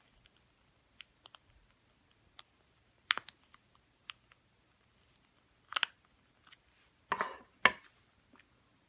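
Plastic key fob housing being pried apart with a thin knife blade: scattered sharp clicks and snaps of plastic, with the loudest snaps about three seconds in and near the end as the case halves come loose.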